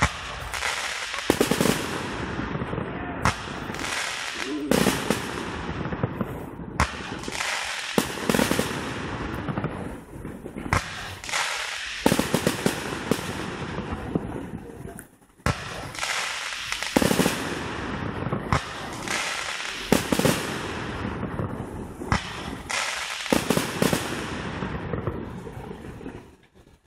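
Fireworks display: shells and rockets bursting one after another, sharp bangs each trailed by crackling. There is a brief lull about halfway through, and the bursts die away just before the end.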